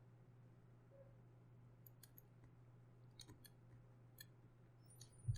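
Near silence with faint, scattered computer mouse clicks, a few in quick pairs, and a slightly louder click just before the end.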